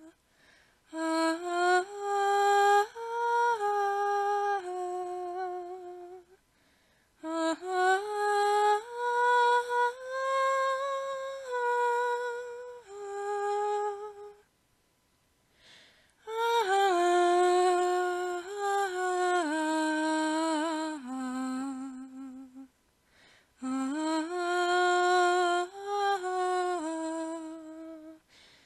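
Music: a slow, wordless melody of held notes, in phrases of several seconds with short breaks between them.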